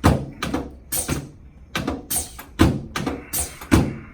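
Repeated thuds from a chiropractic adjusting table, its drop section clunking down again and again, about two knocks a second and not quite evenly spaced.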